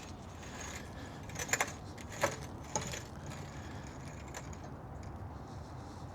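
A few light metallic clicks and rattles from the jack as it is released to lower the car slowly, against a steady low background.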